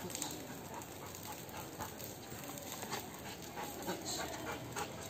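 Rottweiler panting in short, irregular breaths.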